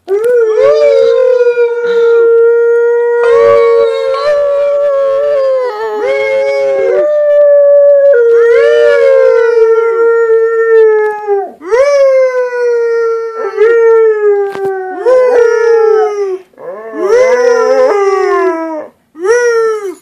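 A dog howling. At first it gives long howls held on one pitch with a drop at the end of each, then after about 11 seconds a string of shorter howls with short breaks between them.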